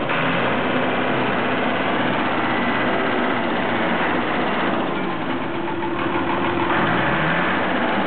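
Massey-Ferguson MF400 crawler bulldozer's engine running steadily, its pitch rising near the end as it revs up.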